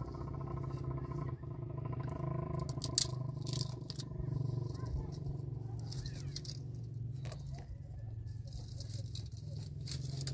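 A steady low mechanical hum, engine-like, with scattered sharp clicks and knocks.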